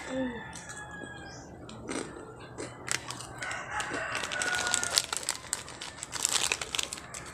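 A rooster crowing, mixed with the crinkling of a plastic snack wrapper being opened by hand.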